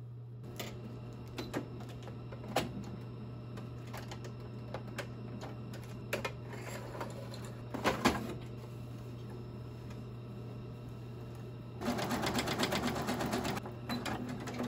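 Computerized Singer sewing machine stitching in a short rapid burst of about a second and a half, near the end. Before it come scattered clicks and fabric rustling as the cotton is handled and set under the presser foot, over a steady low hum.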